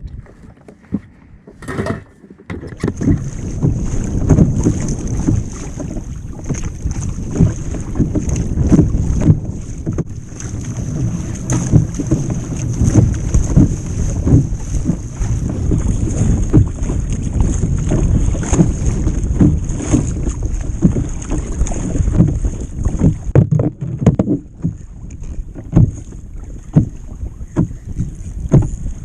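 Kayak moving quickly over the sea: water rushing and slapping against the hull, with wind buffeting the microphone. It starts about two and a half seconds in, and a steady high hiss over it weakens near the end.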